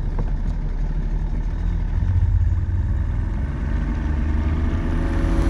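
Mercury 50 hp outboard motor running steadily, driving a bass boat across the water, with water rushing along the hull.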